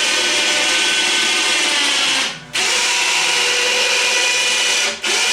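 Handheld electric power tool running steadily with a whining tone, dropping out briefly twice, about halfway through and near the end.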